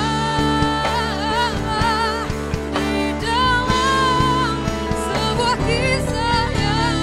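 Female vocalist singing long, wavering held notes over a live acoustic-pop band of saxophone, electric bass, drums, keyboard and electric guitar.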